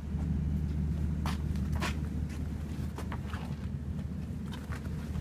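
Irregular footsteps and short clicks over a steady low rumble.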